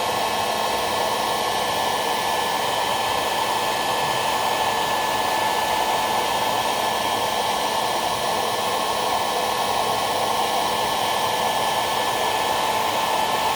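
Hair dryer running continuously: a steady blowing rush with a constant motor whine, unchanging throughout.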